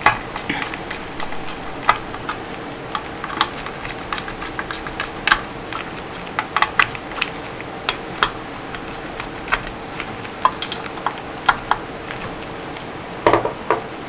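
Phillips screwdriver tightening the small screws of a graphics card heatsink: irregular light clicks and ticks as the tip seats and turns in the screw heads, with a louder cluster of clicks near the end.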